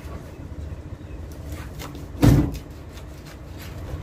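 Steady low rumble of traffic and wind, with one dull thump a little over two seconds in.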